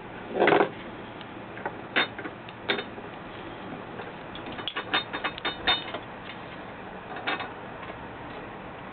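A squirrel moving about on a window sill and at a metal spoon there: a loud scuffle about half a second in, then scattered sharp clicks and a quick run of scrabbling clicks around the middle.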